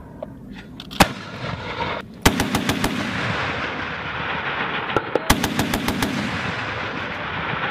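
Two short bursts of 20 mm cannon fire from an AH-1Z Viper's M197 Gatling gun, about three seconds apart, each a rapid buzzing string of sharp cracks, with a single sharp bang about a second in.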